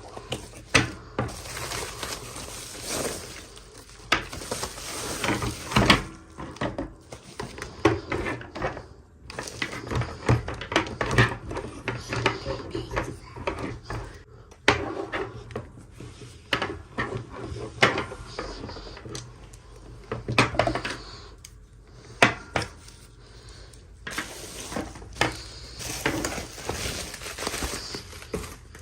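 Toy doll packaging being handled and opened by hand: irregular clicks, taps and knocks of hard plastic with rustling in between.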